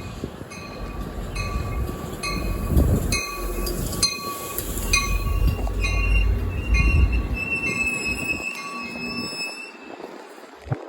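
NJ Transit diesel passenger train pulling into the station: the engine and wheels make a heavy rumble, with the locomotive bell clanging about every half second. The train's wheels and brakes squeal as it slows, and the rumble dies away about eight seconds in as it comes to a stop.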